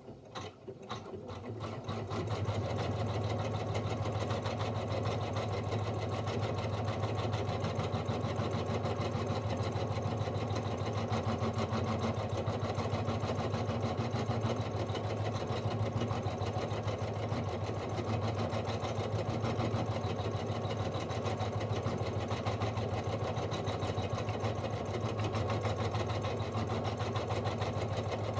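Janome embroidery machine stitching an outline onto vinyl in the hoop: it speeds up over the first two seconds, then the needle runs in a steady, fast rhythm.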